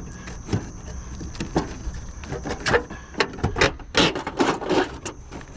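Irregular clicks, knocks and scrapes of prying at roofing nails to free a gutter and shingle, with a denser run of scraping about four seconds in.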